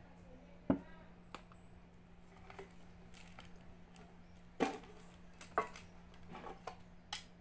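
Small containers and a tin being handled on a table: about five sharp clicks and taps spread through, over a steady low hum.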